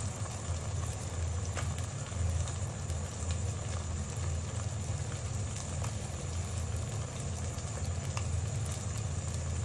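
Duck eggs frying gently in oil in a non-stick pot: a soft, steady sizzle with a few faint pops, over a low steady hum.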